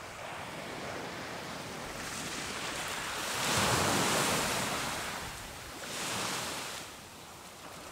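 Small ocean waves breaking and washing up a sandy beach, a steady hiss of surf that swells into a louder wash about three and a half seconds in and a smaller one around six seconds.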